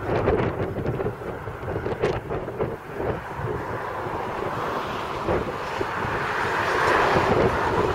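Strong wind buffeting the microphone in gusts, over a Class 56 diesel locomotive's 16-cylinder Ruston engine working under power with a train of empty scrap wagons. The wind grows louder near the end.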